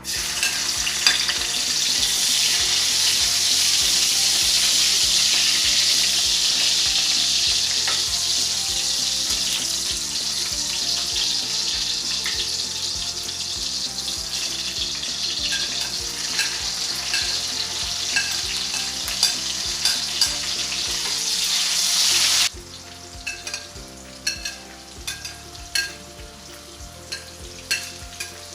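Food frying in a hot pan, a loud, steady sizzle that starts suddenly. About 22 seconds in it drops abruptly to a quieter sizzle with sharp clicks of a utensil stirring against the pan.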